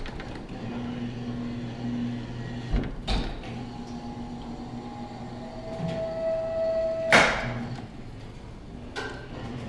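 Claw machine mechanism working through a play: a steady motor hum, a couple of clicks about three seconds in, a steady whine near the middle, then one loud sharp clack about seven seconds in.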